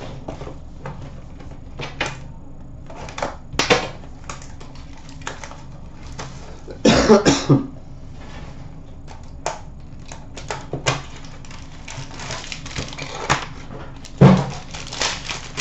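A sealed box of hockey cards being handled and opened by hand: scattered taps and clicks of cardboard and packs on a glass counter, with two louder bursts of wrapper or cardboard crinkling and tearing, one about halfway through and one near the end.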